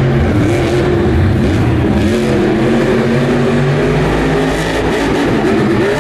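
Grave Digger monster truck's supercharged methanol V8 revving up and down over and over as the truck drives across the dirt jumps.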